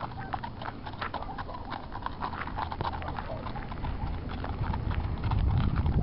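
Hoofbeats of a palomino Quarter Horse walking on packed dirt: a steady run of light clip-clops. A low rumble builds up and becomes the loudest sound near the end.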